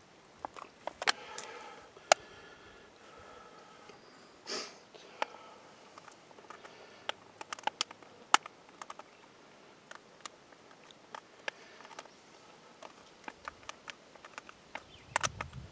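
Scattered light clicks and crinkles from an aluminium pie-plate leech trap being handled, with a short sniff about four and a half seconds in.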